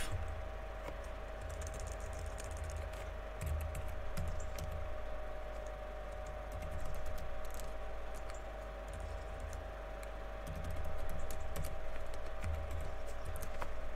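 Typing on a computer keyboard: irregular, quick key clicks in short runs. A steady hum lies underneath.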